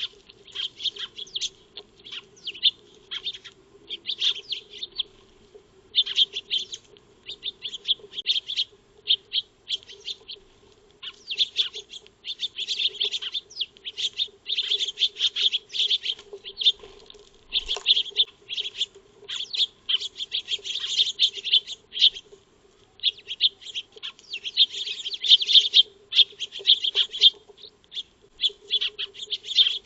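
Eurasian tree sparrows chirping in rapid runs of short notes, several birds calling over one another, with only brief gaps. A faint steady low hum sits underneath.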